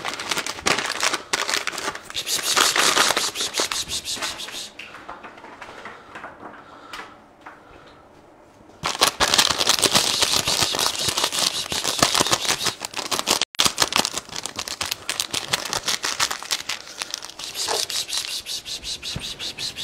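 Plastic bag of cat treats crinkling and rattling as it is handled and shaken. It comes in two loud spells with a quieter lull from about five to nine seconds in.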